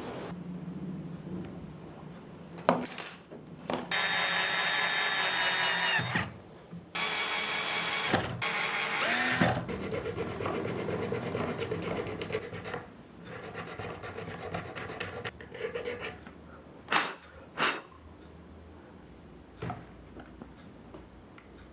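Hand tool work on the build: two loud stretches of scraping, each about two seconds long, then lighter scraping, with a few sharp clicks and knocks.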